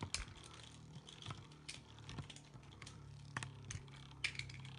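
Spinning Beyblade tops clicking and tapping irregularly against each other and the plastic stadium. A faint steady hum comes in about halfway through.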